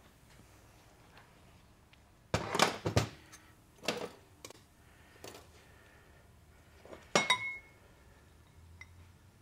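Metal knocks and clinks from a TH350 clutch drum and its piston being handled as the piston is pulled out of the drum: a cluster of knocks about two and a half seconds in, a few lighter ones, then a sharp clank with a brief metallic ring about seven seconds in.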